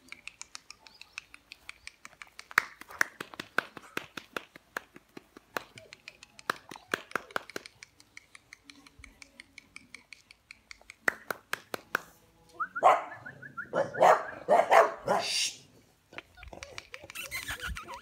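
Cane Corso puppies yipping and barking in play, loudest in a burst of a few seconds about two-thirds of the way in. Behind them runs a fast, even ticking of about four ticks a second.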